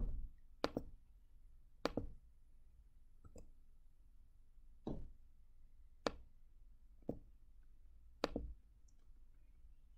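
Computer mouse clicking: about eight faint single clicks, irregularly spaced a second or so apart.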